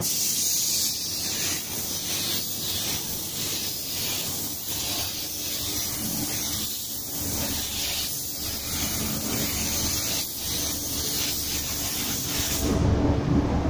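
DeVilbiss GTi Pro Lite spray gun hissing steadily as it lays a light mist coat of matt clear coat, with a low rumble underneath. The gun's air cuts off near the end, leaving only the rumble.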